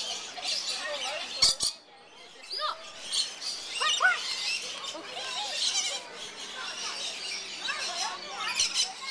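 A flock of lorikeets chattering, with many overlapping high chirps, squeaks and short whistles. Two sharp clicks come about a second and a half in.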